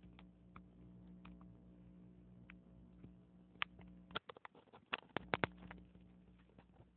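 Faint steady machine hum, likened to a running washing machine, with scattered light clicks and ticks. The hum cuts out briefly about four seconds in and comes back amid a quick run of clicks.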